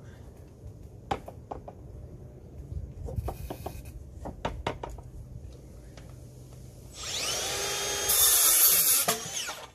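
Wooden boards knocking and clattering as they are handled, then a cordless drill spinning up and running for about two and a half seconds, louder under load for the last second, its motor pitch dropping as it stops: a screw being driven into a wooden fence rail.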